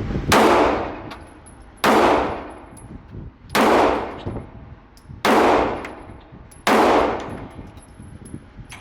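Five pistol shots fired slowly, about one and a half seconds apart, each sharp crack trailing off in a long echo.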